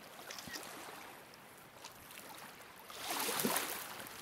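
Small waves lapping on a pebble shore, with one louder wash about three seconds in and faint scattered clicks.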